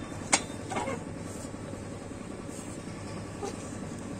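A sharp metal clank about a third of a second in, then a fainter rattle, as the steel lever of a manual tyre changer is worked against a car wheel. A steady low hum runs underneath.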